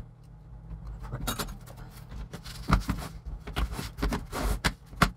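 Handling noise of a laptop: irregular clicks, scrapes and knocks as a small tool picks debris out of the seam at the corner of the Dell Latitude E5570's base, and the laptop is slid and turned on the desk, with a few louder knocks in the second half.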